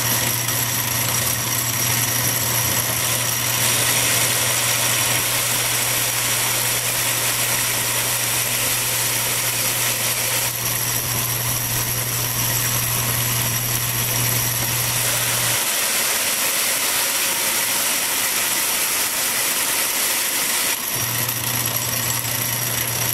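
Metal lathe running under power while a carbide tool takes a turning cut along a metal bar, a steady machine drone with the hiss of cutting. A low hum in the drive drops away for several seconds after the midpoint, then comes back.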